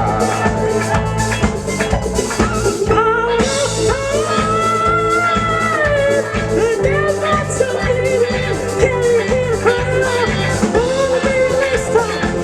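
A live band playing an upbeat number: drum kit and bass keeping a steady beat under guitar and a bending melodic lead line, with a brief break about three seconds in.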